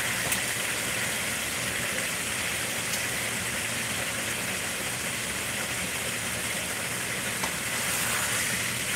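Chicken pieces sizzling steadily in a dark, glossy sauce in a hot wok, with a couple of faint light clicks and a wooden spatula starting to stir near the end.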